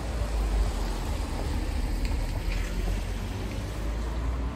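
Wet city street ambience: a steady low rumble of traffic with an even hiss over it.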